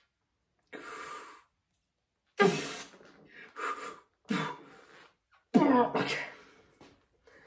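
A young man's hard exhales and strained grunts with each rep of a one-arm overhead dumbbell lift, about five short bursts, the loudest about two and a half and five and a half seconds in.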